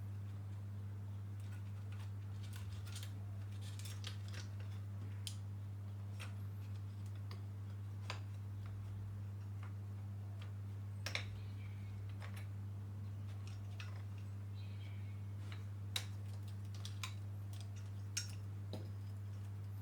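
Scattered small clicks and taps of tools and parts being handled as the controller board is taken out of the vehicle's controller box, a few sharper ones near the middle and toward the end. A steady low electrical hum sits underneath.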